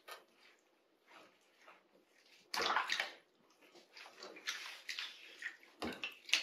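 Water splashing and sloshing in a half-filled bathroom sink as a wet kitten is washed by hand, in short irregular splashes, the loudest about two and a half seconds in.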